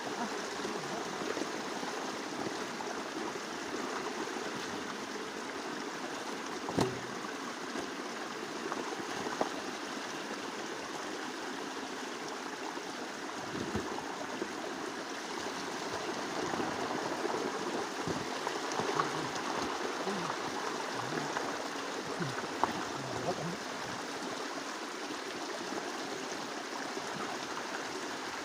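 Steady rush of running water, with a few brief knocks.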